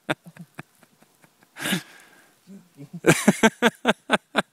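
Bull elk sniffing at a snowmobile and pack up close: one loud, breathy sniff about a second and a half in, among irregular clicks and rustles as its muzzle works against the gear, thickest near the end.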